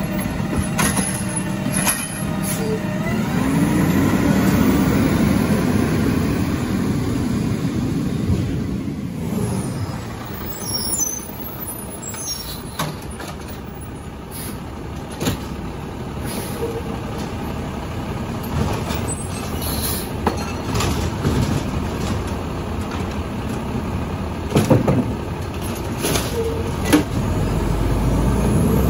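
Residential garbage truck's diesel engine running and revving, rising and falling in pitch a few seconds in and again near the end, with scattered clanks and knocks.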